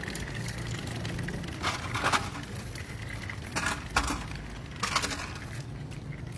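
Small stroller's plastic wheels rattling and scraping over a metal drain grate and concrete as it is pushed, in three short clattering bursts about two, three and a half, and five seconds in.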